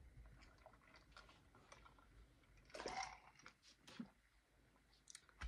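Faint swallowing of iced seltzer water gulped from a glass mug, then a short louder breath about three seconds in and a light knock a second later.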